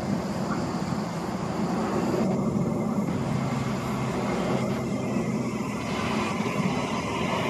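Queensland Rail New Generation Rollingstock electric train arriving at the platform: a steady rumble of wheels on rail with motor noise, and a higher whine coming in near the end.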